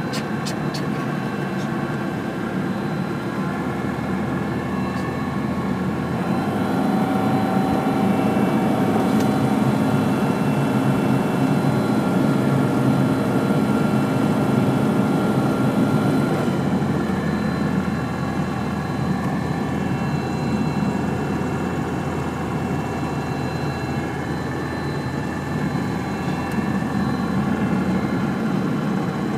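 Light single-engine propeller aircraft's engine and propeller running at low power, heard from inside the cockpit while the plane taxis. The engine note grows louder about six seconds in and eases back again around sixteen seconds.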